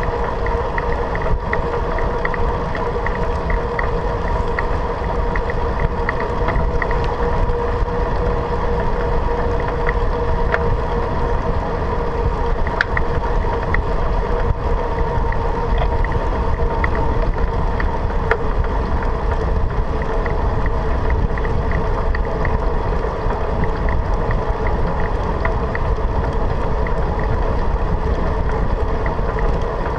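Steady wind and rolling noise of a bicycle riding on an asphalt path at about 28 km/h, picked up by a handlebar-mounted camera, with a steady hum and scattered light ticks over it.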